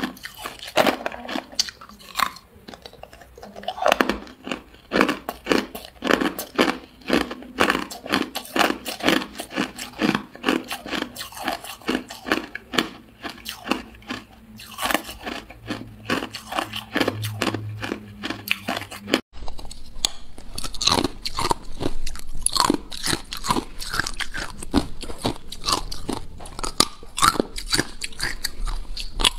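Hard ice cubes being bitten and chewed close to the mouth: a fast, uneven run of sharp, brittle crunches. The crunching breaks off for a moment about two-thirds of the way through, then carries on.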